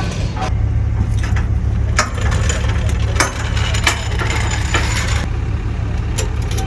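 A steady low engine hum under scattered sharp clicks, knocks and creaking of wood, as a truck with a sheared ball joint is winched onto a car-hauler trailer, sliding over wooden boards.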